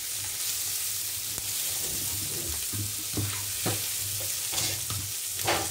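Boiled eggs and almonds sizzling in oil in a frying pan as they are stirred by hand. The utensil scrapes and knocks against the pan several times over the second half.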